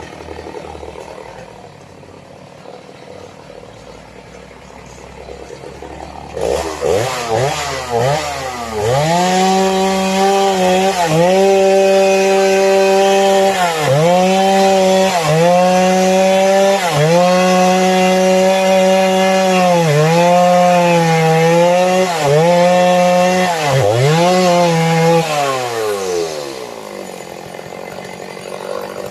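Two-stroke chainsaw idling, then revved up about six seconds in and cutting sengon wood at full throttle, its pitch dipping briefly every second or two as the chain bogs under load. It winds back down to idle near the end.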